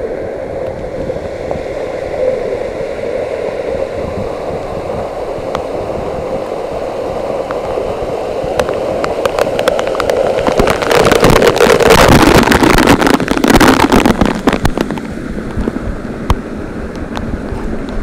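Steady rush of water from a waterfall. From about ten seconds in, the falling water splashes hard and loud onto the camera for several seconds, then eases.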